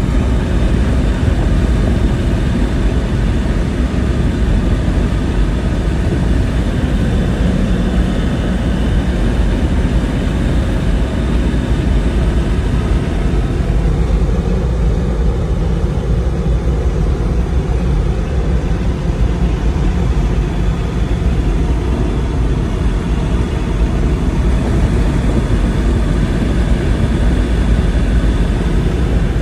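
Toyota Land Cruiser 100 cruising in fifth gear at highway speed, heard from inside the cabin: a steady engine drone mixed with road and wind noise.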